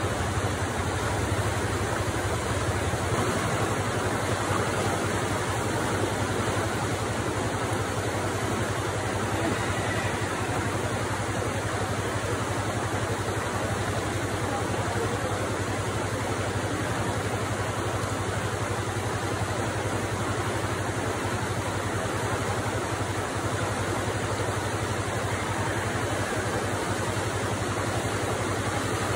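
Muddy floodwater rushing steadily through a river ford: a constant, unbroken wash of water noise with a low rumble beneath it.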